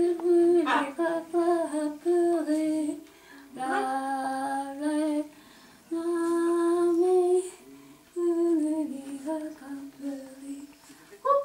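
A woman humming softly in short held notes and gliding phrases, with brief pauses between them. A quick rising squeak comes a little under a second in.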